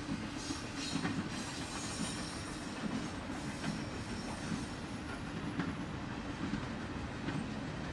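Double-stack intermodal freight cars of a Norfolk Southern train rolling past: a steady rumble of steel wheels on rail, with scattered clicks as the trucks pass over the track.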